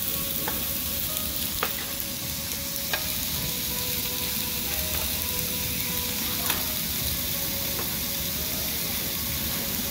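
Marinated pork belly and other marinated meat sizzling on a perforated tabletop Korean barbecue grill, a steady frying hiss. A few light clicks sound over it, at about half a second, about a second and a half, about three seconds and about six and a half seconds in.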